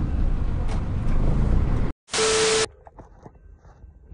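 Steady low rumble of vehicle and road noise that cuts off abruptly. After a moment's gap comes a brief, loud burst of hiss with a steady mid tone, then only faint scattered clicks.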